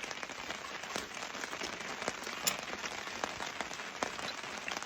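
Steady rain falling, an even hiss scattered with many small drop ticks, one a little louder about two and a half seconds in.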